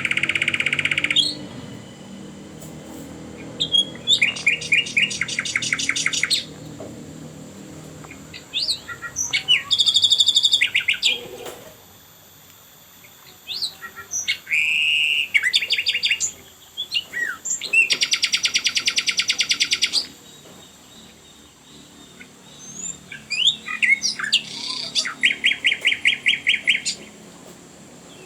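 A songbird singing in phrases of high chirps and rapid trills, each phrase lasting one to three seconds with short pauses between them, about half a dozen phrases in all.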